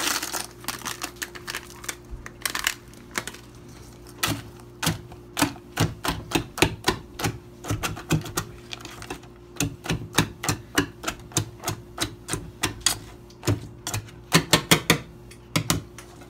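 Wire whisk clattering against the sides of a stainless steel mixing bowl as thin batter is whisked: quick, irregular metallic clicks, a few a second, with a fast flurry near the end.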